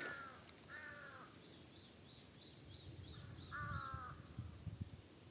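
A crow cawing, a few harsh calls of about half a second each, two of them close together around the middle, over continuous high-pitched chirping from small birds that stops near the end.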